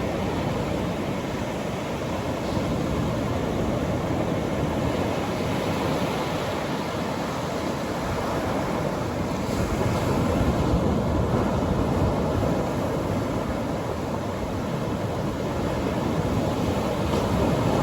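Atlantic Ocean surf breaking and washing on a beach: a steady rushing wash that swells a little louder about ten seconds in and again near the end.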